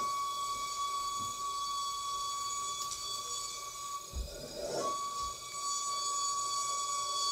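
A steady, single high-pitched tone that holds unchanged, broken and wavering briefly about four and a half seconds in, with a low thump just before the break.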